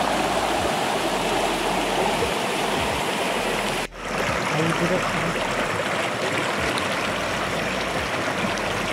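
Stream water rushing steadily over rocks, with a sudden brief drop-out about four seconds in.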